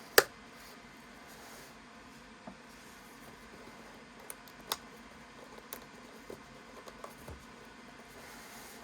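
Unboxing handling noises: one sharp snap about a quarter second in, then a few scattered softer clicks and taps over faint room noise.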